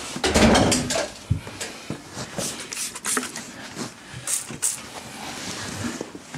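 Knocks, bumps and fabric rustling as a soft-sided cat carrier is carried and jostled, with a heavy thump about half a second in and scattered sharp knocks after it.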